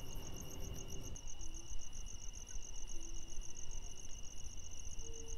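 Night insects chirping: a rapid high pulsing, about seven pulses a second, over a steady high trill, with a low rumble beneath.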